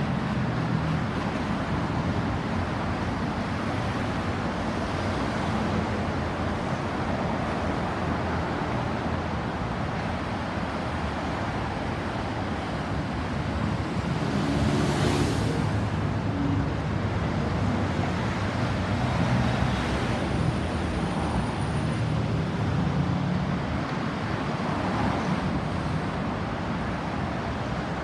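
Steady road traffic noise: passing vehicles rumbling and hissing, swelling briefly about halfway through, with no siren wailing.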